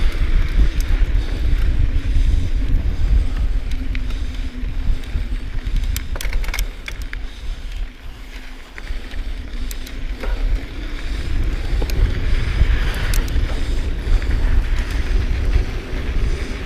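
Intense Tracer mountain bike riding fast down a dusty dirt trail: a steady rumble of tyres on dirt with wind buffeting the microphone, and scattered clattering knocks from the bike over bumps. The rumble eases for a moment about halfway through, then builds again.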